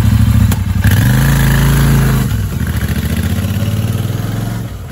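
Royal Enfield Interceptor 650's parallel-twin engine revving up about a second in as the motorcycle pulls away, then running steadily and growing fainter near the end as it rides off.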